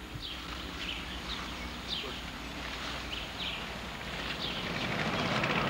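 Short bird chirps, each a quick downward sweep, come a few times a second or so. From about four seconds in, an approaching engine with a rapid pulse grows steadily louder.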